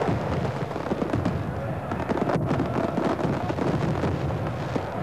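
Fireworks going off in rapid, continuous crackles and bangs, mixed with the noise of a large stadium crowd.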